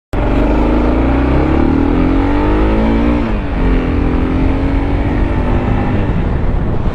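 Car engine accelerating: its pitch climbs for about three seconds, drops suddenly as it shifts up a gear, then climbs more slowly again, over a heavy low rumble.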